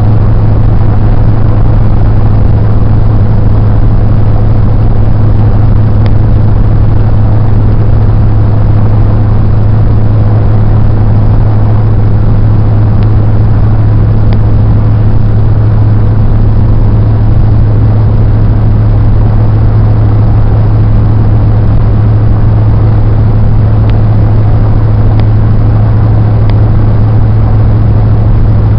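Steady road and engine noise inside a moving car's cabin, with a strong, even low hum and a few faint ticks.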